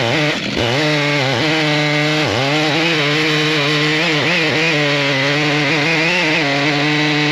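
Stihl MS881 two-stroke chainsaw with a 56-inch bar running at full throttle while ripping along an elm log in an Alaskan chainsaw mill. Its steady high pitch dips briefly several times as the engine bogs under the load of the cut.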